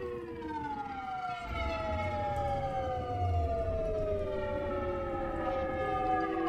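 Several sustained whistle-like tones overlap, each sliding slowly down in pitch like a winding-down siren. They come from an experimental instrument of glass vessels and hoses being played. A low rumble joins about one and a half seconds in.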